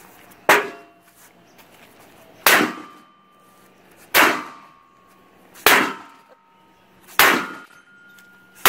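A 2x4 swung hard into a ribbed aluminum hurricane storm panel in an impact test: a series of loud clanging blows, about one every second and a half, each leaving a short metallic ring.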